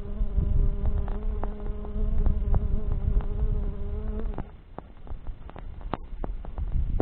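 A flying insect buzzing close to the microphone in a steady, even drone that cuts off suddenly about four and a half seconds in. Campfire crackling with sharp pops runs underneath.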